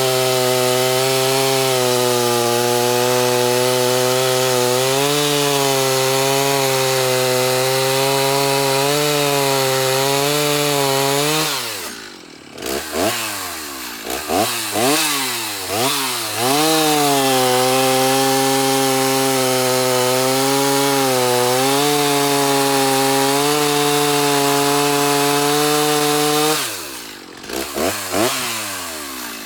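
Stihl two-stroke chainsaw at full throttle cutting through wood, its pitch dipping slightly under load. About twelve seconds in the throttle is let off and blipped several times before a long second cut; near the end it drops off again with a few more blips.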